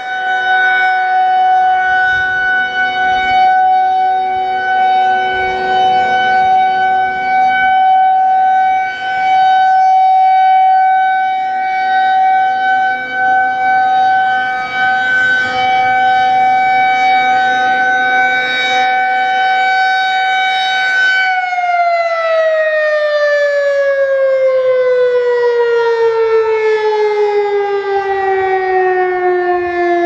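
Federal Signal 2001-130 electromechanical outdoor warning siren sounding its steady alert tone, very loud. About 21 seconds in the tone cuts and the siren winds down in a long falling pitch as the three-minute alert signal ends.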